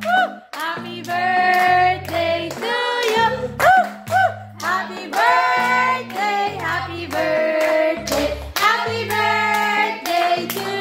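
Music with a sung melody over a stepping bass line and a steady beat, with hands clapping along.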